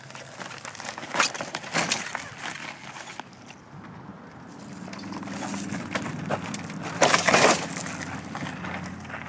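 Loaded wooden handcart on large spoked wheels rolling over wood chips and gravel, crunching and knocking as it crosses bumps. Sharp knocks come about a second and two seconds in, and a rolling noise builds in the second half to its loudest crunch about seven seconds in.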